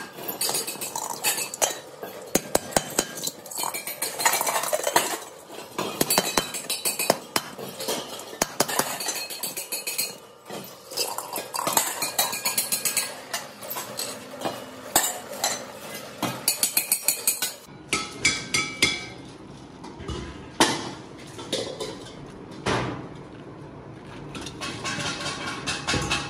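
Pressed steel LPG cylinder halves clanking and clinking against each other as they are handled, fitted together and stacked, a dense run of quick metallic knocks. The knocks thin out to fewer, ringing clanks in the later part.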